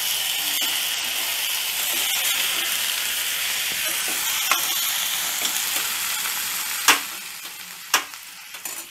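Tomatoes, shallots and green chilli sizzling in hot oil in a steel pan as they are stirred, with a metal spoon clinking against the pan a few times. The sizzle dies down after about seven seconds.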